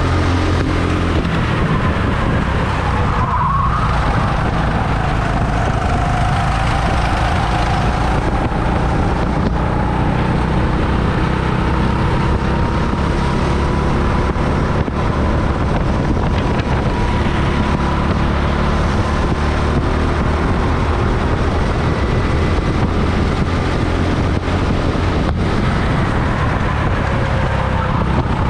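Rental go-kart running at racing speed, heard onboard: a steady low rumble with a motor whine that slowly rises and falls in pitch.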